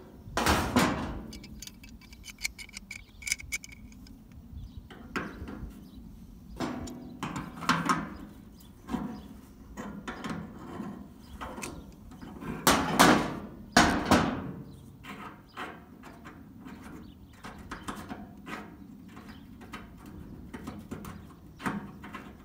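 Channel-lock pliers clicking, knocking and scraping against a metal fitting under a swamp cooler as they are worked to loosen it, with two louder bursts of noise a little past halfway.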